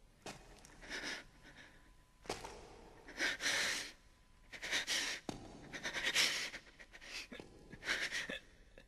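A man breathing heavily in a series of harsh, uneven breaths, with short pauses between them.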